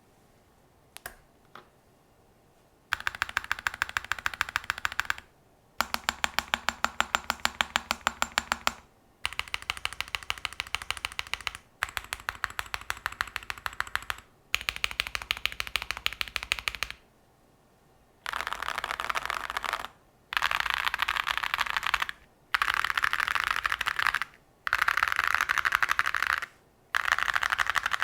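Mechanical keyboard fitted with Awekeys metal keycaps, being typed on in rapid bursts of about two seconds each, with short pauses between. The early bursts are fast, evenly spaced clicks; the later ones are denser, blurring into a steady clatter.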